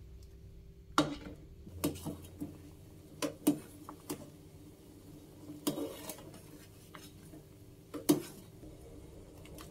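A metal spoon knocking and scraping against a small saucepan while stirring palm-sugar syrup as it heats on the stove: irregular sharp clinks, about nine in all, the loudest about a second in and about eight seconds in.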